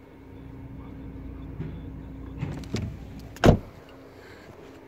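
Light knocks and handling noise, then one loud slam about three and a half seconds in: a VW Golf 5 estate's tailgate being shut.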